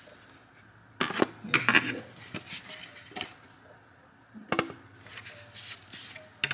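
Plastic engine cover of a 2020 Dodge Charger Hellcat being pried up and lifted off its mounting grommets. It gives several sharp plastic clicks and knocks spread over a few seconds.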